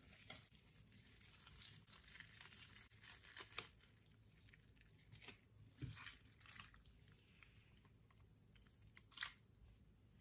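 Hands squishing and pressing a pile of Orbeez water beads in a glass dish: faint wet squelches and soft crackling clicks of the beads, with a few louder squishes about three and a half, six and nine seconds in.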